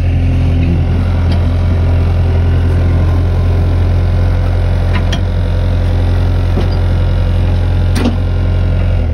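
Engine of a compact tracked loader running steadily at a constant speed, with a few short sharp clicks from the attachment about five and eight seconds in.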